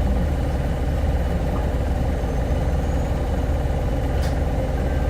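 Steady engine hum of a Keio city bus, a Hino Blue Ribbon hybrid (2SG-HL2ANBP), heard from inside the cabin. A single short tick about four seconds in.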